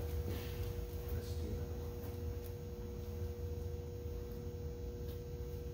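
Steady room hum: a low rumble with a faint steady tone held over it, and a few faint rustles.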